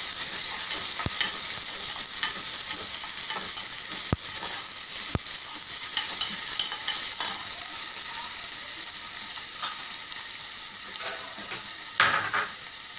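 Sliced onions and green chillies sizzling steadily as they fry lightly in hot oil in a metal pot. A steel spoon stirs them and knocks sharply against the pot a few times in the first half.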